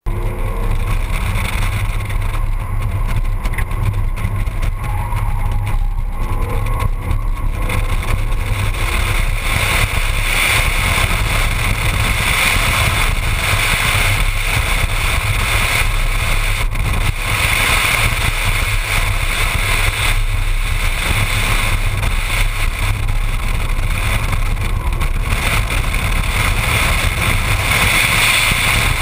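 Ford Mustang driven at an easy pace around a racetrack, picked up by a camera mounted outside the driver's door: a steady mix of engine and road noise.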